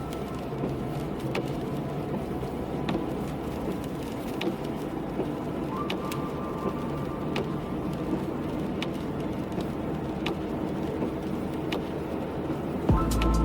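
A car driving through rain: steady hiss of tyres and rain on the wet road, with occasional sharp ticks of raindrops striking.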